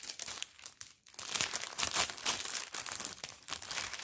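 Crinkling and rustling as a cross-stitch kit's fabric sheet and plastic packaging are handled, with a few scattered crackles at first, then near-continuous crinkling from about a second in.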